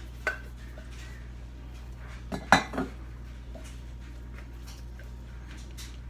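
Kitchenware clinking and knocking against a glass mason jar as sourdough starter is transferred into it: a short knock near the start, then a louder group of two or three knocks around the middle.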